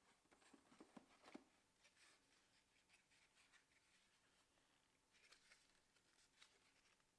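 Near silence with faint scattered taps, clicks and light rustles of packaging and small plastic parts being handled, a small cluster in the first second and a half and another about five seconds in.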